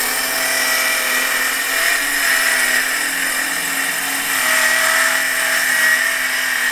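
Milwaukee Fuel cordless circular saw running steadily under load, its blade ripping lengthwise through plywood with a continuous high whine.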